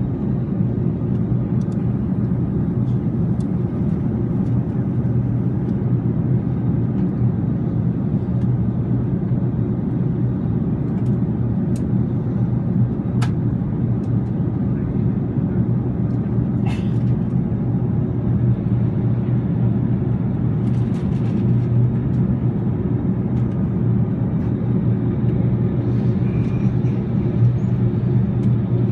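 Steady low drone of an Airbus A380 in flight, its Rolls-Royce Trent 900 engines and the airflow heard from inside the upper-deck cabin, with a few faint clicks.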